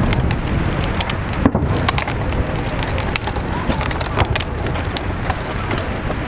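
Crackling fireworks going off in quick, irregular snaps and pops, the sharpest about a second and a half in. Under them is a steady low rumble of wind on the microphone and some crowd voices.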